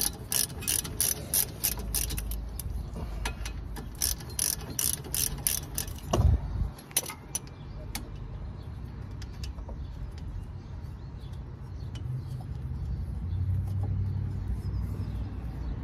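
Ratchet wrench clicking in quick runs, about three clicks a second, as a brake caliper bolt is turned. A single knock comes about six seconds in, and a low rumble follows that grows louder near the end.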